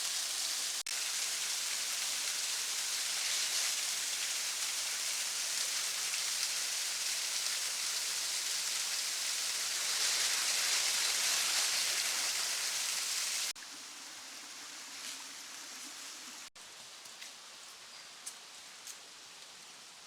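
Rushing water of a mountain river or cascade, a steady loud hiss, that cuts off abruptly about 13 seconds in, leaving a much quieter background with a few faint clicks.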